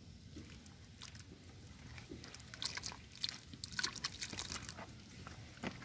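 Fish splashing and slapping in shallow muddy water as it slides down a mud channel into a hole: a cluster of quick wet splashes and crackles in the middle, with water trickling around them.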